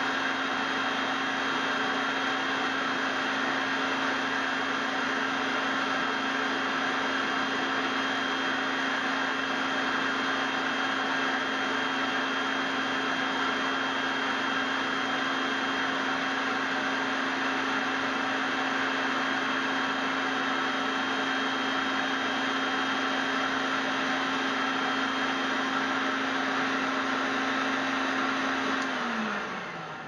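850 W La Germania vacuum cleaner running steadily with an even motor whine, then switched off about a second before the end, its motor spinning down with falling pitch.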